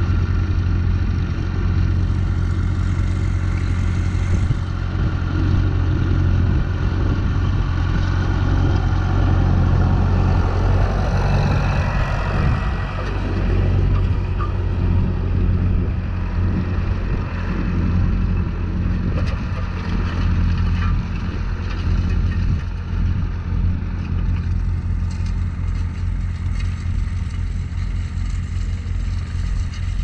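Massey Ferguson tractor's diesel engine running steadily, a constant low drone that barely changes in level.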